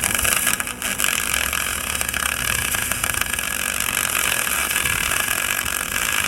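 Argon-shielded electric arc welding on an aluminum roof bar: a steady high hiss from the arc, with a few faint clicks near the start, during tack welds.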